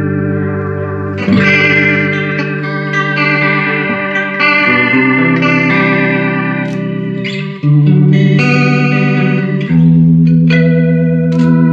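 Electric guitar played through a Fender Ultimate Chorus 2x12 combo amp with its stereo chorus engaged: sustained chords ring with a gentle wavering shimmer, a new chord struck about every two to three seconds.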